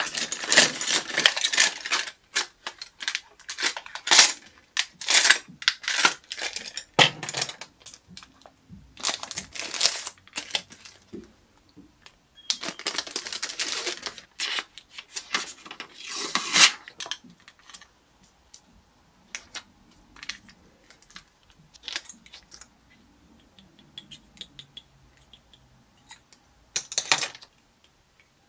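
Plastic packaging crinkling and rustling in several loud bursts over the first half as items are handled, followed by scattered light clicks and taps of small plastic items.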